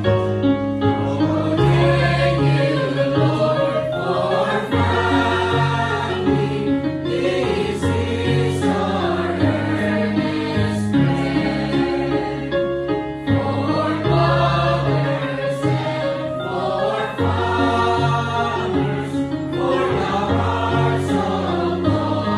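A mixed choir of young voices singing a hymn in four-part harmony, with held chords and a steady bass line from a keyboard accompaniment.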